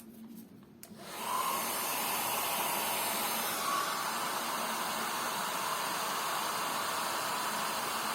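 Hair dryer switched on about a second in and running steadily, blowing air, as used to dry leather dye during colour matching.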